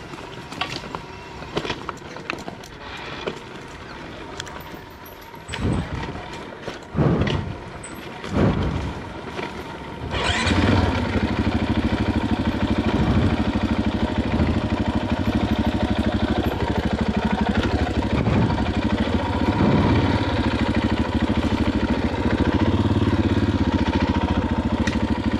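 Single-cylinder four-stroke engine of a KTM EXC 500 dirt bike. After some knocks and a few short rising sounds, it catches suddenly about ten seconds in and then runs steadily at idle.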